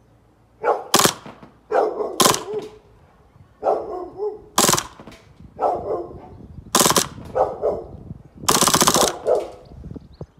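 Airsoft AAP-01 gas blowback gun in a 3D-printed carbine kit firing four single shots and then a short full-auto burst of about half a second near the end. Dogs bark in between the shots.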